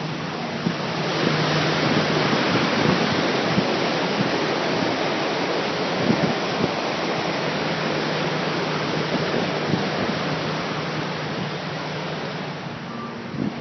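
Fast-flowing floodwater rushing down a street, a loud steady noise like a waterfall, with a low steady hum underneath at the start and again in the second half.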